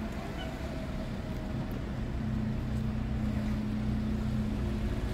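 ADL Enviro 400 double-decker bus engine running, a steady low hum; a deeper steady drone strengthens about two seconds in.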